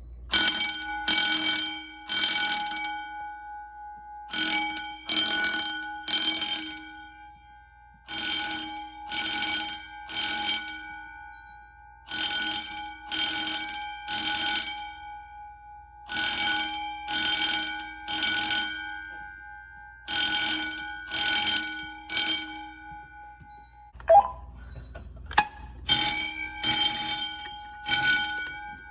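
Wheelock motor fire alarm bell ringing in the temporal-three evacuation pattern: three short rings, a pause, then three more, repeating about every four seconds. A brief knock and click fall in one of the pauses near the end.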